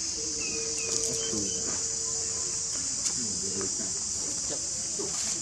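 Steady, high-pitched drone of a chorus of insects, with a few faint held tones lower down.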